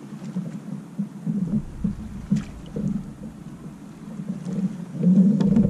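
Water lapping and knocking against a kayak hull, with wind rumbling on the microphone that comes in about a second and a half in and grows louder near the end. A few faint clicks.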